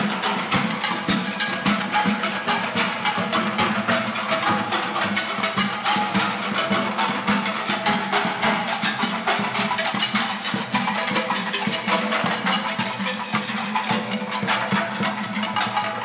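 Group of drummers beating kitchen cookware such as frying pans and pots, mounted on body braces, with sticks in a fast, steady, continuous beat.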